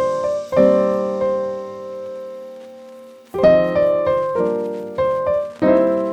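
Background piano music: slow chords struck and left to ring out, with a long held chord fading before a new group of chords about three and a half seconds in.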